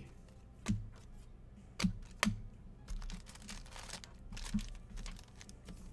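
Trading cards being handled and sorted on a tabletop: three sharp taps and clicks in the first half, then soft rustling and sliding of cards.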